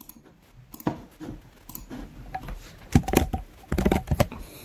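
Typing on a computer keyboard: a few scattered keystrokes, then quick runs of keys about three and four seconds in.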